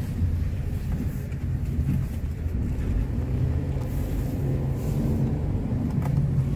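Car engine and tyre noise heard from inside the cabin while driving: a steady low rumble.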